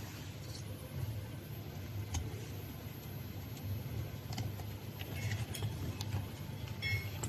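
Scattered light clicks and small taps, as of parts being handled, over a steady low hum.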